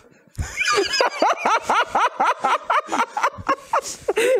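Several people break into loud laughter about half a second in, a quick run of rising-and-falling laughs from overlapping voices.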